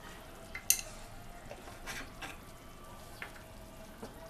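Watery curry gravy simmering in a pan, a soft steady bubbling with a few faint ticks. One sharp click about a second in.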